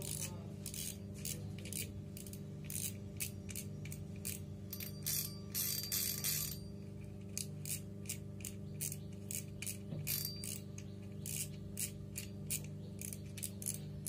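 Spinning reel (Lucana Spin 40) clicking as it is worked by hand: a run of sharp mechanical clicks, about two to three a second, with a denser rush of clicking about a third of the way in.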